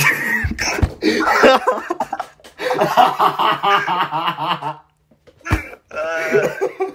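Loud, hard laughter in choppy, cough-like bursts, with a short knock about five and a half seconds in.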